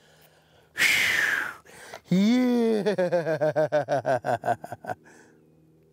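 A man's voice: a sharp breathy exhale about a second in, then a long drawn-out cry that breaks into quick, rhythmic laughing pulses and dies away about five seconds in.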